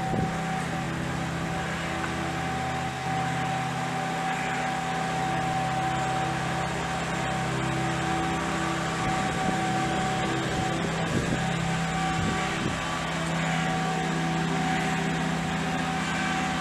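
Steady mechanical hum of a running machine, made of several fixed tones that hold at an even level, with a few faint clicks.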